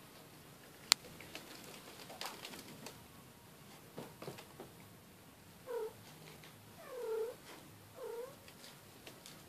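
A cat meowing three times, short arched calls about a second apart, the middle one the longest. A single sharp click about a second in is the loudest sound, with a few faint taps and rustles after it.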